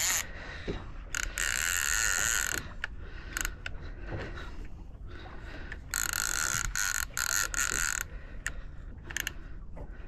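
Fishing reel's drag buzzing in bursts as a hooked fish pulls line off against it, the longest runs lasting a second or two with shorter spurts between.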